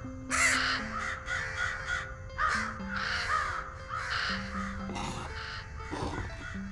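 Crows cawing over and over, with background music playing steady notes underneath. Near the end come a couple of rough scratchy strokes, like chalk rubbed on bark.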